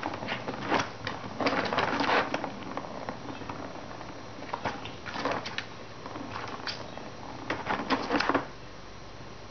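Plastic ball rattling and rolling around a plastic circular cat track toy as a kitten bats it, in several bursts of clatter with pauses between.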